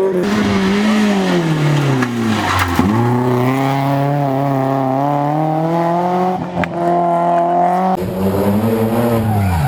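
Rally car engine at full load on a stage. The pitch falls over the first few seconds as the driver lifts off, climbs steadily under acceleration, then drops again near the end as the car slows for a corner.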